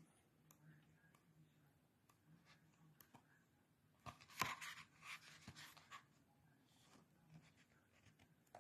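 Paper pages of a paperback book being turned by hand: a short papery rustle about four seconds in, with faint handling clicks before and after.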